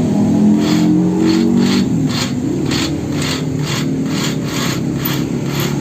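Metal being sawn by hand: rhythmic scraping strokes, about three a second, starting about a second in, over a steady low hum.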